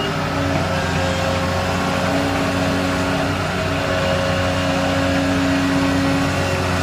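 Volvo EC160C excavator's diesel engine running under load, with a steady hydraulic whine that shifts in pitch as the bucket digs, lifts and swings over to the dump truck.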